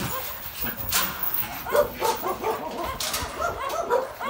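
Dog barking and yipping in short, repeated calls.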